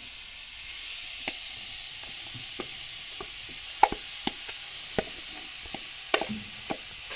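Grated coconut being stirred in a hot metal pan: a steady hiss, with the wooden spoon and silicone spatula clicking and knocking against the pan about seven times, loudest a little under four seconds in.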